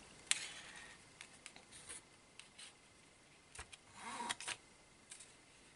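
Faint rubbing and scraping of a ribbon being drawn out from under an ink pad pressed onto paper, with a sharp click near the start. A brief low hum, like a voice, comes about four seconds in.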